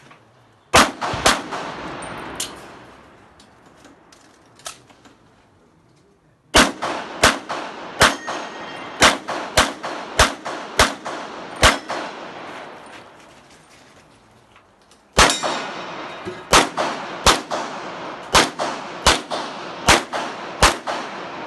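Handgun shots fired during a practical shooting course of fire: a quick pair about a second in, then two long strings of shots roughly half a second apart, separated by a lull of a few seconds. Each shot rings on briefly, and two fainter cracks fall in the first lull.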